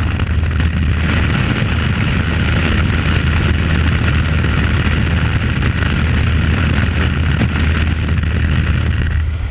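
Steady, loud drone of a jump plane's engines, with a constant rushing of air over it.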